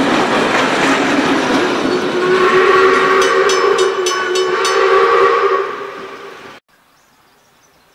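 Heritage train carriages rolling past on the rails, with steam locomotive 621's whistle sounding one held blast of about three seconds from about two seconds in, and a few rhythmic wheel clicks during it. The sound fades and then cuts off abruptly about two-thirds of the way through.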